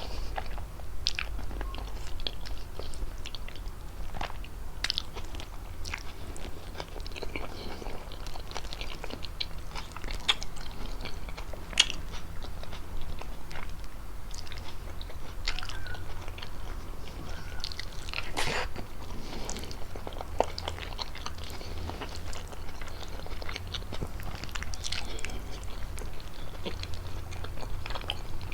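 Close-miked chewing of fettuccine with chicken: soft, wet mouth sounds and lip smacks with scattered sharp clicks, a louder click about twelve seconds in and a longer smack about eighteen seconds in.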